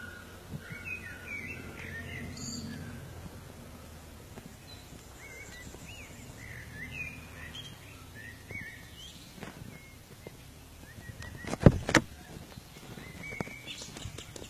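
Small birds chirping and calling in woodland, with a low background rumble. Two sharp knocks, close together, stand out loudly about three-quarters of the way through.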